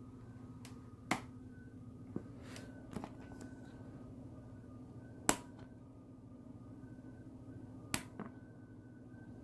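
Double-pole, double-throw toggle switch clicking as it is flipped back and forth to change a red-green LED track-power indicator: several sharp clicks a few seconds apart, the loudest about five and eight seconds in. A faint steady low hum runs underneath.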